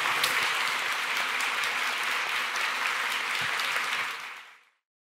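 Audience applauding, a dense patter of many hands clapping that fades out about four and a half seconds in.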